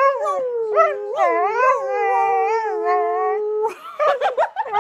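Australian Shepherd howling in long, wavering drawn-out notes, one held steady for a couple of seconds, breaking into shorter choppy sounds near the end.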